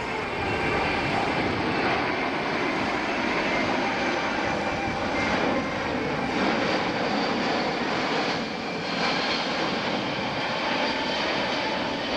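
Boeing C-17 Globemaster III's four Pratt & Whitney F117 turbofan engines running during a low pass, a steady wash of jet noise.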